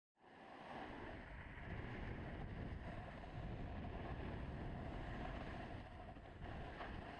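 Wind buffeting a GoPro Hero3's microphone while a snowboard slides down hard-packed snow: a steady rushing noise with a low rumble that fades in at the very start.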